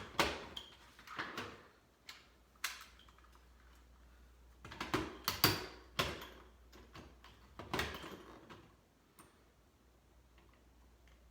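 A series of sharp clicks and knocks from objects being handled, about eight in all, with quiet gaps between them and the loudest cluster near the middle.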